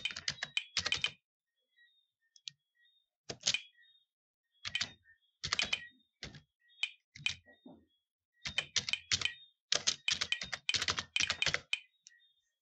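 Typing on a computer keyboard: short runs of quick keystrokes separated by brief pauses, the longest and densest run in the second half.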